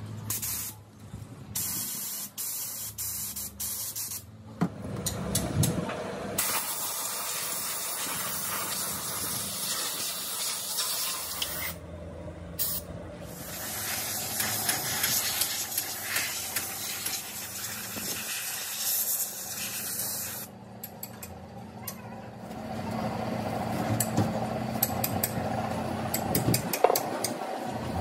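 Compressed-air spray gun with a red siphon canister hissing as it sprays cleaning liquid onto metal parts, in several long bursts broken by short pauses.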